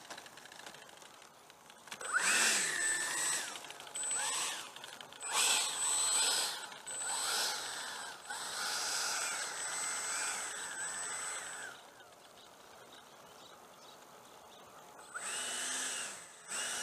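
Electric ducted fan of a Freewing F-4 Phantom RC jet, run on 8 cells, spooling up and down in a string of throttle bursts with a high whine as it taxis. It goes quiet for about three seconds, then another burst comes near the end.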